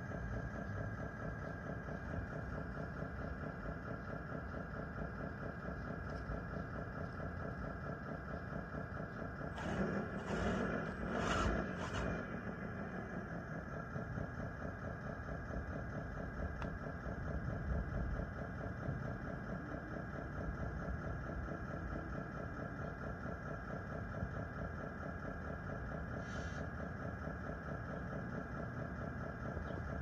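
DXR2 RC bulldozer with its engine sound running steadily at idle. About ten seconds in there are a couple of seconds of louder rattling. The dozer's drive has a busted gear in its planetary gear system.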